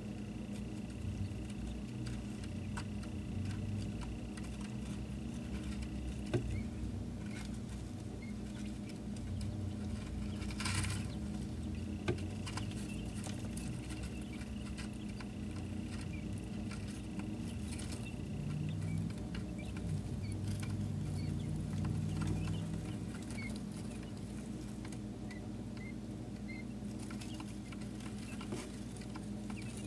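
Day-old quail chicks moving about a brooder: many light, scattered taps and scratches of tiny feet and pecking beaks, over a steady low hum.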